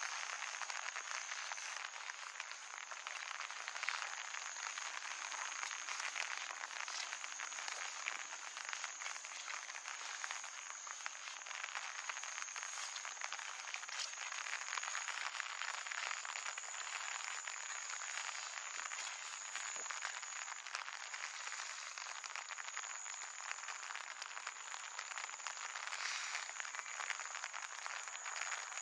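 Dense, steady chorus of frogs croaking by flooded ground in wet weather, with a constant high-pitched ring running through it.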